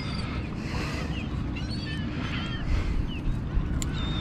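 Birds calling in short chirps over a steady rumble of wind and water.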